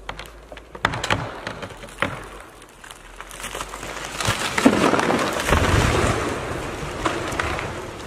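A tall conifer being felled: sharp cracks of wood snapping as the tree breaks from the stump, then a rising rush of the crown sweeping through the air and neighbouring branches, and a heavy crash with a deep thud as the trunk hits the ground about five seconds in, fading as the debris settles.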